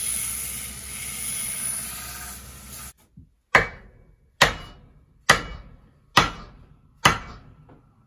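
A steady hiss that cuts off about three seconds in, then five hard wooden knocks a little under a second apart, each ringing briefly: an axe handle being struck down against a wooden block to seat the axe head on it.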